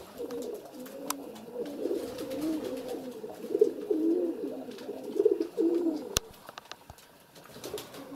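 Domestic pigeons cooing in a loft: a run of low, warbling coos that dies away about six seconds in, with a sharp click just before.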